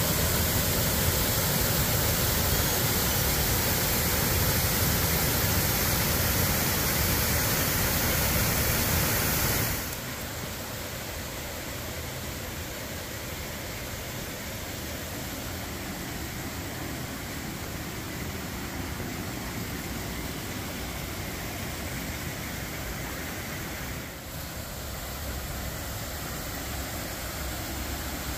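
A waterfall in strong flow, rushing steadily. About ten seconds in the rush drops suddenly to a quieter, softer level, with a brief dip near the end.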